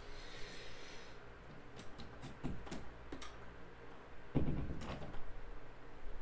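A door being opened and closed: a run of sharp clicks like a latch or handle, then a heavier thump about four seconds in and a second one just after.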